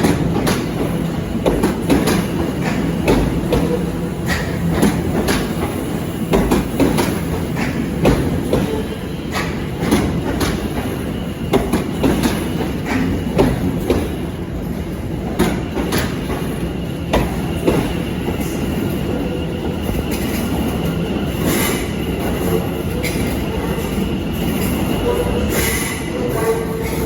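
Passenger train moving slowly through the station, its wheels clattering over rail joints and points with a steady rumble. In the second half a thin wheel squeal joins in.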